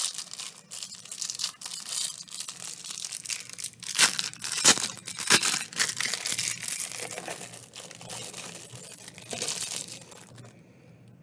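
Thin plastic packaging crinkling and tearing as it is handled and pulled open by hand, a dense crackle that is loudest in the middle and dies away near the end.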